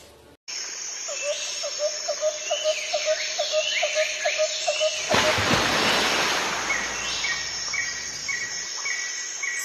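Birds calling: one repeats a short low note about four times a second while others chirp higher over a steady high hiss, and later a bird repeats a higher note two or three times a second. About five seconds in, a loud rush of noise lasts about two seconds.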